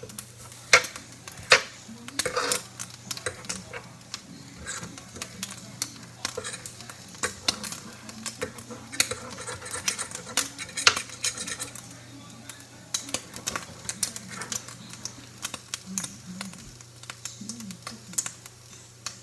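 Kitchen utensils clattering against a frying pan and a plate: irregular clinks and knocks throughout, over a steady low hum.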